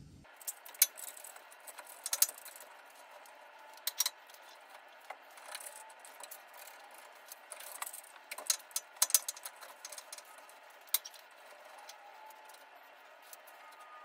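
Steel round tubing and a bar clamp being set into a truck's notched frame rail: irregular sharp metal clinks and knocks, the loudest about a second in, at two and four seconds, and again around nine and eleven seconds.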